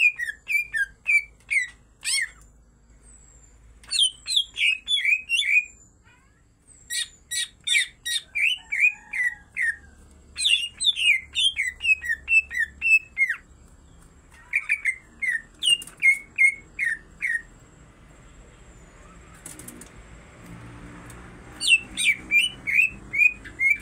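Caged green leafbirds (cucak ijo) singing in repeated phrases of quick, falling chirped notes, each run lasting two to three seconds with short pauses between, in full, vigorous song.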